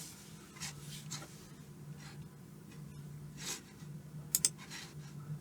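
Quiet small-room tone with a faint steady low hum, a few soft rustling sounds, and two quick sharp clicks close together near the end.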